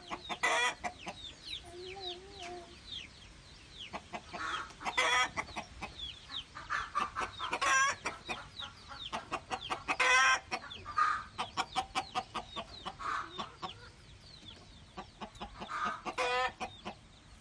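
Chickens clucking in a run of short calls, with several louder squawks and high falling peeps in the first few seconds.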